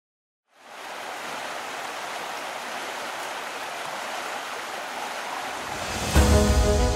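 Steady rush of water over river rapids, fading in about half a second in. About six seconds in, music cuts in over it with a heavy low hit and sustained notes, louder than the water.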